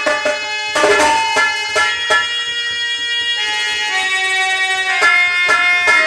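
Instrumental folk music: sustained melody notes over regular drum strikes, typical of a nautanki stage band interlude.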